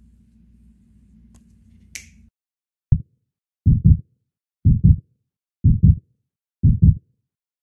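Heartbeat sound effect laid over the video: deep double thumps, lub-dub, about once a second, starting about three seconds in after the faint shop background cuts to dead silence. Before that, a sharp click about two seconds in.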